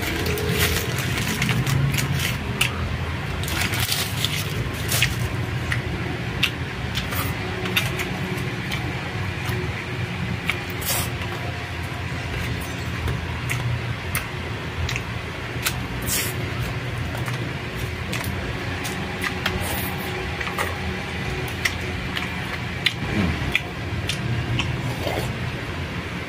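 Close-up eating sounds: chewing a shawarma wrap and spoonfuls of rice, with many small wet mouth clicks and the crinkle of the paper wrapper, over a steady low hum.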